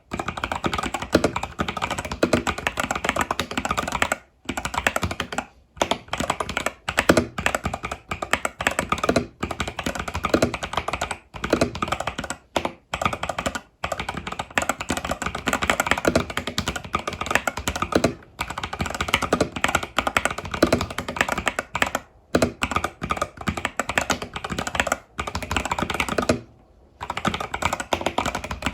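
Fast continuous typing on an Epomaker TH80 Pro mechanical keyboard with Epomaker Budgerigar tactile switches and stock keycaps, a dense stream of key clacks with a few brief pauses, the longest about a second near the end.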